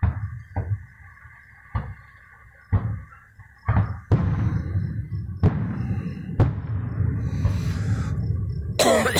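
Aerial fireworks going off: a series of sharp bangs at irregular intervals, about eight in all, with a continuous rumble building underneath from about four seconds in. A short, high wavering sound comes near the end.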